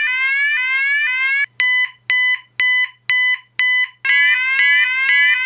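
Electronic fire alarm sounding: a rapidly repeating rising sweep, about two sweeps a second. About a second and a half in it breaks into five short steady beeps, then the sweeps resume.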